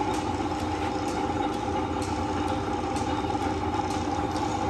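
Old camelback drill press running steadily under its electric motor, its freshly greased bearings and drive turning with a steady hum and a light tick now and then.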